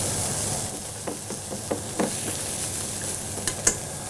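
Halibut fillet and pak choy sizzling steadily in a covered wok after chicken stock has been added, with a few short clicks through the hiss.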